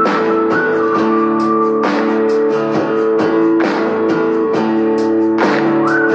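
A Samsung Galaxy S10 ringtone: a looping guitar tune with a sharp strum about every two seconds under a higher held melody line.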